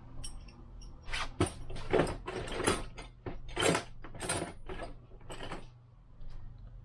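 About ten short scraping, clattering noises in quick succession from hand tools being handled during bike crank work.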